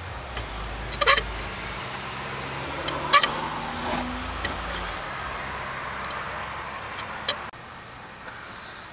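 A steel C-clamp being screwed in against a disc-brake caliper piston to push it back into its bore, making room for new pads. Three sharp metallic clicks come about a second in, about three seconds in and near the end, over a steady background rumble.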